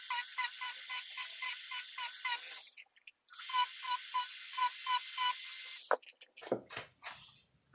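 Dremel rotary tool running with a fine-grit sanding head against EVA foam, a steady high hiss with a regular pulsing. It drops out briefly about three seconds in, starts again and cuts off about six seconds in, followed by a few light knocks and clicks of handling.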